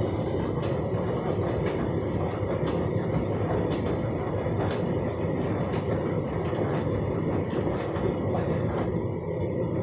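Candy front-loading washing machine running mid-cycle, its drum turning with water and suds in it: a steady rumble with a faint click about once a second.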